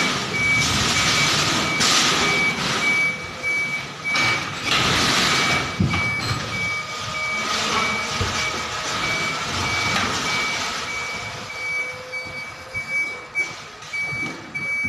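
Container truck's reversing alarm beeping, a single high tone repeated at an even pace, over the truck's engine running and a few bursts of hissing noise.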